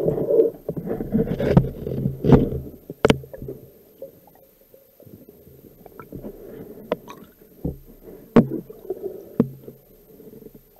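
Muffled underwater noise picked up through a camera housing as a diver handles a freshly speared pike: a low rumble of water movement with scattered sharp clicks and knocks. The clicks and knocks are busiest in the first few seconds, then sparse and quieter.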